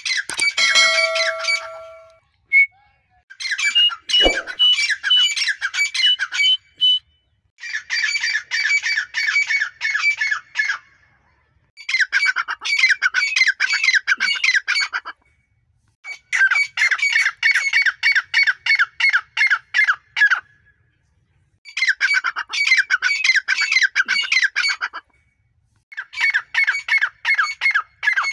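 Grey francolins calling: about six bouts of fast, harsh, repeated notes, each lasting two to four seconds, with short pauses between bouts.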